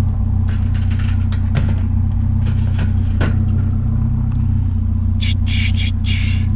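Vehicle engine idling steadily, with several sharp metal knocks and clanks from scrap being handled, and a rasping scrape about five seconds in.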